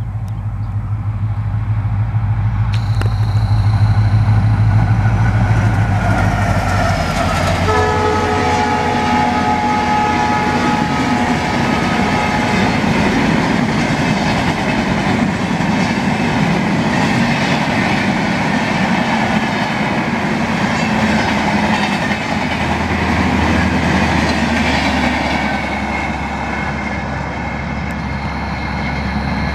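Passenger train of LHB coaches passing at speed. The locomotive comes up and goes by, its horn sounds a chord for about four seconds about eight seconds in, then the coaches rush past with their wheels clattering, easing off near the end.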